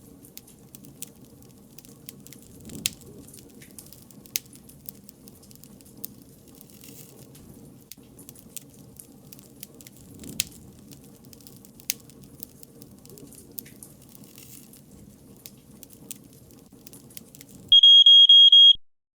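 Wood fire crackling, with scattered sharp pops. Near the end a loud, high-pitched electronic pager-style buzzer sounds for about a second and cuts off sharply, signalling that the timer has run out.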